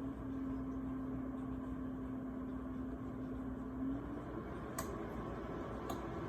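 GoveeLife 1500 W electric space heater running with its fan blowing steadily, with a low hum that rises slightly and fades about four seconds in. Two short clicks follow, about a second apart.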